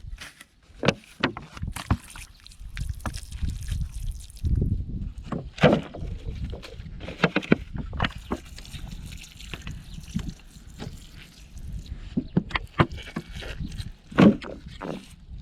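Irregular sloshing and splashing in shallow muddy water, with scattered sharp knocks and a low rumble underneath.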